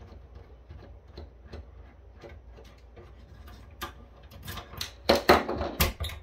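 Precision screwdriver backing screws out of a small cooling fan in a metal equipment case: faint, regular ticking, then louder clicks and clatter from about four seconds in as the fan is worked loose.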